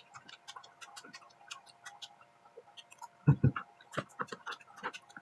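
Close-miked eating of fried rice: a run of small irregular clicks and smacks from chewing and the mouth, with a loud dull knock about three seconds in and a sharp click just after. A faint steady hum runs underneath.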